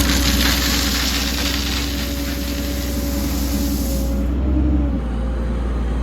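An engine running steadily at a low hum, with a loud hiss over it that stops about four seconds in.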